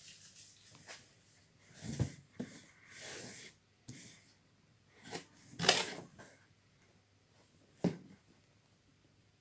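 Cardboard packaging being handled: a headphone retail box knocking and scraping against its shipping carton, about half a dozen short knocks with a soft rustle among them. The loudest is a brief scraping bump a little past halfway.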